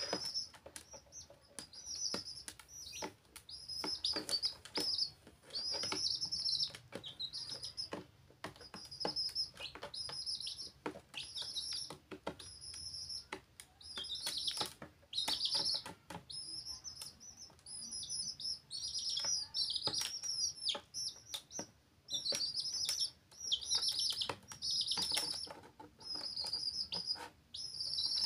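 Baby chickens peeping: a busy run of short high-pitched peeps from several chicks, in spells broken by brief pauses. Scattered sharp taps sound through it.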